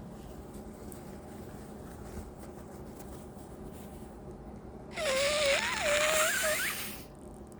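A person with a congested nose blowing it hard, once, for about two seconds starting about five seconds in. The blow is loud and squeaky, with a whistling tone that wavers and rises near the end.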